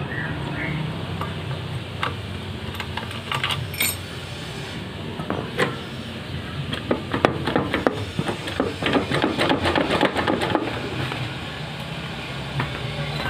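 Metal tools and loose bolts clinking and tapping while the CVT cover bolts of a Honda Vario scooter are undone and the cover is worked loose. The clicks come in scattered groups and grow busiest about halfway in, over a steady low hum.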